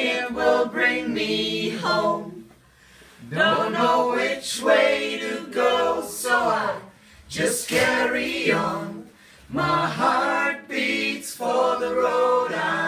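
A small group of men and women singing together a cappella, in short phrases with brief pauses between them.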